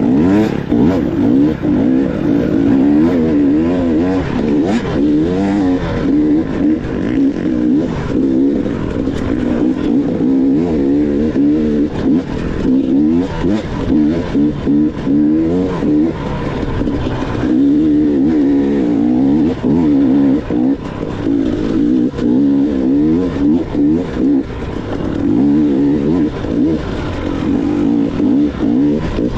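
Dirt bike engine revving up and down as it is ridden hard, its pitch rising and falling over and over with the throttle, with brief dips where the throttle is rolled off.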